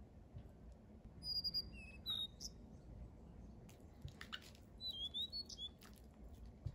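Small birds chirping in short, high calls, a few at a time, with clusters at about one and a half, two and five seconds in. Beneath them are soft scrapes and light clicks of a silicone spatula working cream cheese around a glass bowl.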